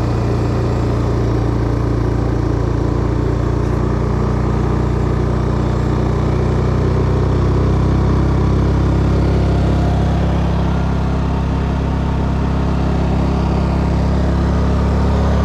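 Honda 3200i fuel-injected inverter generator running under an increasing electrical load. Its engine speed rises about halfway through and again near the end as it takes on more load, with the pitch of its steady hum going up.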